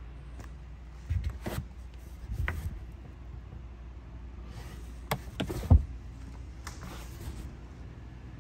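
Handling noises in a car's trunk as the carpeted floor panel over the spare-wheel well is moved: scattered knocks, clicks and rustles, the loudest a single thump a little past halfway, over a steady low hum.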